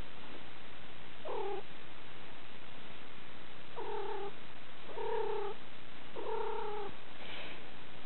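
A domestic cat being stroked gives a series of short, even-pitched calls: four clear ones about a second apart, then a fainter, higher one near the end.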